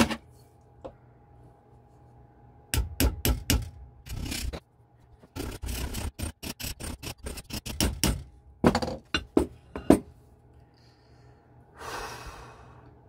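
Hammer blows on a sheet-metal jewelry piece being shaped with metal-forming tools. About four strikes come first, then a quick run of many strikes, then a few more, with a short burst of noise near the end.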